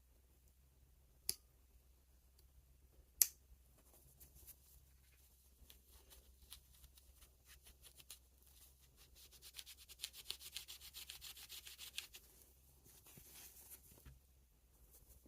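Hand work on a pocket knife: two sharp clicks a couple of seconds apart, then scattered light scrapes, and a quick, rapid run of rubbing strokes for about two seconds.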